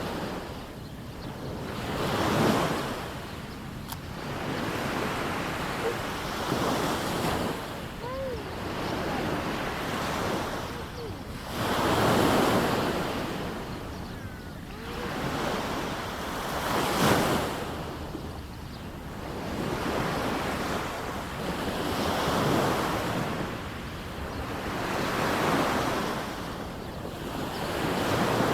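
Small sea waves breaking and washing up a sandy beach, the surf swelling and falling away every few seconds.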